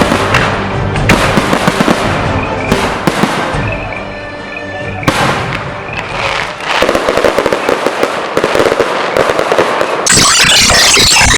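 Fireworks going off: repeated bangs from bursting shells, then dense crackling from about seven seconds in, rising to a loud continuous crackle in the last second that stops abruptly. Music plays under the early part.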